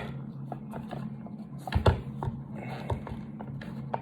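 Clicks and knocks of a Benelli M2 shotgun's stock being worked onto its receiver by hand, with a louder knock at the start and another a little under two seconds in, over a steady low hum.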